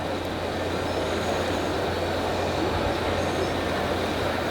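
Radio-controlled scale trucks running, a steady low engine-like rumble with a dense background haze.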